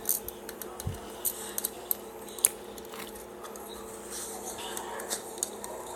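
Wood bonfire crackling as it catches, with irregular sharp pops and snaps.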